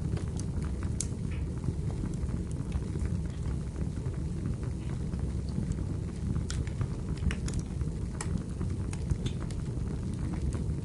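Wood fire burning in a fireplace: a steady low rumble with scattered sharp crackles and pops from the burning firewood.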